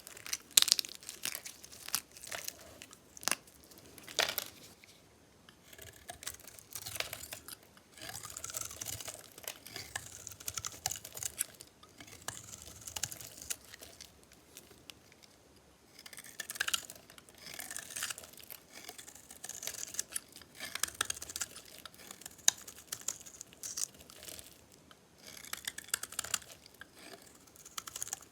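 Knife cutting through dried soap bars: crisp crackling and scraping as the blade shaves and cracks the dry soap, with sharp snaps in the first few seconds and longer crackly cuts after that.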